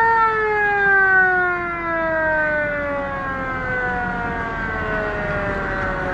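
A motor ship's signal siren winding down: one long tone that falls slowly and steadily in pitch. It is sounded as the departure signal.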